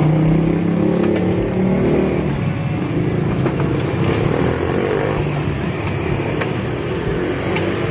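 A motor vehicle engine running steadily close by, a low even hum, with a few sharp clicks over it.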